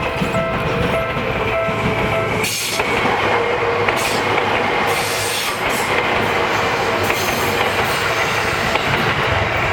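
Japanese level-crossing alarm ringing with its repeating electronic tone. About two and a half seconds in, a Seibu Shinjuku Line train passes right by the crossing, and its continuous rush of wheel and running noise drowns out the alarm.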